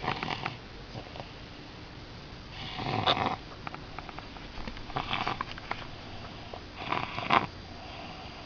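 Snoring: four rasping, crackly breaths, about one every two seconds.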